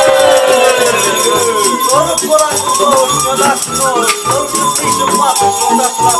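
Tambourines beaten and shaken in a fast, even rhythm, their jingles rattling throughout, with long drawn-out shouts over them: the carolers' noisy accompaniment between verses of a Romanian New Year's greeting (urătură).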